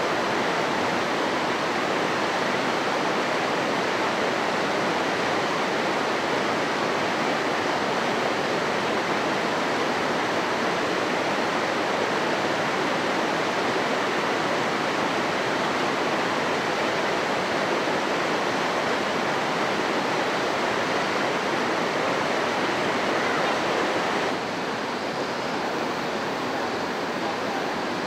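Rushing river water tumbling over rocks: a steady, even roar of rapids. It becomes a little quieter near the end.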